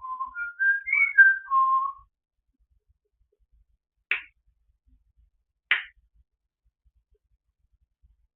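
African grey parrot whistling a short tune of about six clear notes that climb and then fall. Two short sharp clicks follow a few seconds later.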